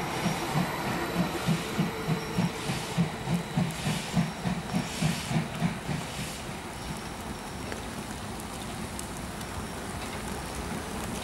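BR 50 steam locomotive moving slowly past, with a low rhythmic beat about three times a second that dies away about six seconds in, leaving a steady hiss.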